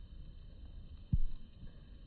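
Low rumbling noise with one short, dull thump about a second in: handling or wind noise on a handheld smartphone's microphone.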